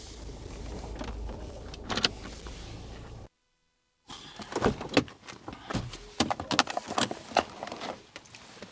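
Steady low rumble that cuts out abruptly a little over three seconds in, followed by many sharp, irregular clinks and knocks, typical of a horse's metal chain lead and halter rattling as the horse is held and tosses its head.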